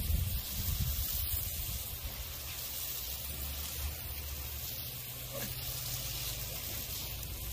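Water spraying from a garden hose jet onto a lawn, a steady hiss, with a low rumble underneath that is strongest in the first second.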